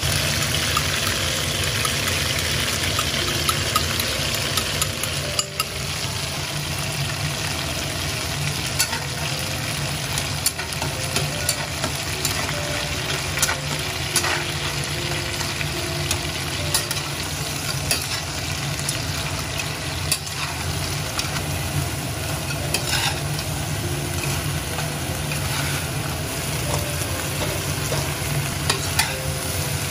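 Food sizzling as it is stir-fried in a pan, with frequent short clicks and scrapes of the spatula over a steady low hum.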